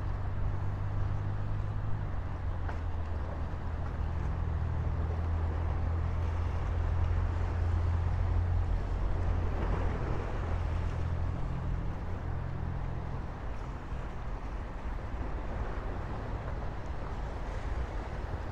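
An engine running with a steady low drone over a constant wash of noise. It is loudest around the middle and eases off after.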